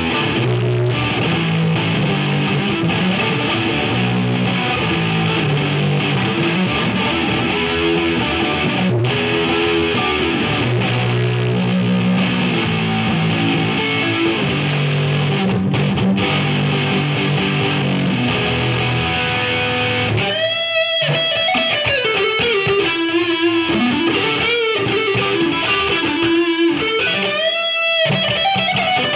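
Electric guitar played through a freshly retubed Marshall JVM 410 valve amp on its overdrive channel: distorted chugging chords, then about two-thirds of the way in a single-note lead line with bends and slides.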